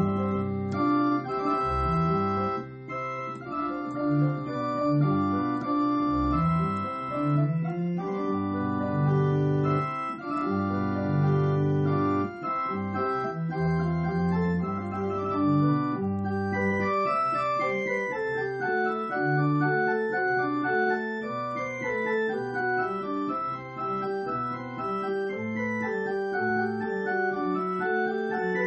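Church organ playing the closing postlude after the benediction: sustained chords over deep bass notes, moving into faster running passages about halfway through.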